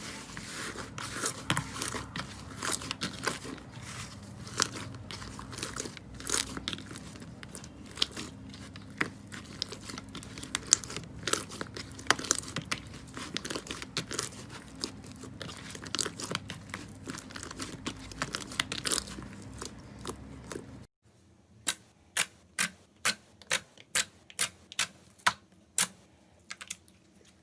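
Slime being squeezed and worked by hand, making a dense crackling of small pops and clicks. Near the end it changes to a run of separate sharp pops, about two a second.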